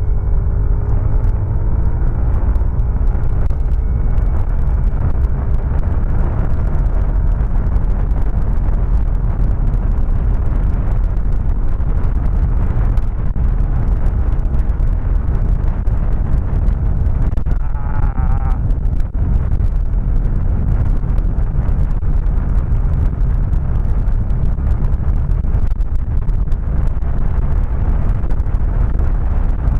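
Suzuki Raider J 115 Fi's small single-cylinder engine at full throttle on a top-speed run, its note rising in the first few seconds, under heavy wind rush on the microphone. The freshly fitted 428 chain set runs without clattering. A brief wavering tone sounds about eighteen seconds in.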